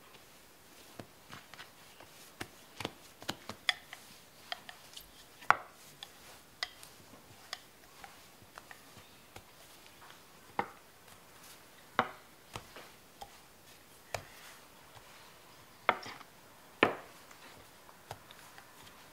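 A wooden rolling pin rolling bread dough out on a wooden board, after hands press the dough flat: irregular light knocks and clicks of wood on wood, with a few louder knocks scattered through.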